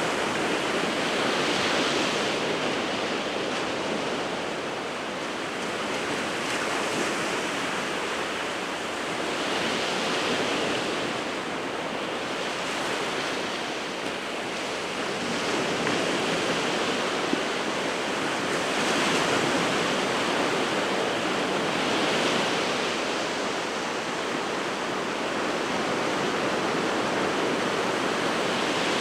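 Sea surf breaking continuously on the shore, a steady wash of noise that swells gently every few seconds as waves come in.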